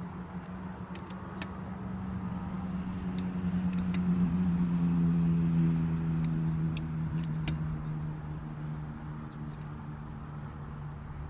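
A passing vehicle's engine hum swells to its loudest about five seconds in, drops slightly in pitch, then fades away. A few light clicks sound over it.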